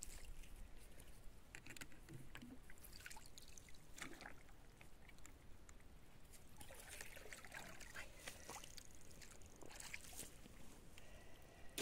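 Faint trickling and pouring of stream water as a bucket is filled, with scattered small knocks and rustles, a little busier from about seven seconds in.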